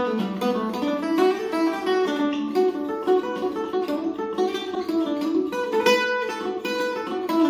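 Weber Black Ice octave mandolin, its paired strings picked in a quick running melody of short single notes: an Irish reel played solo.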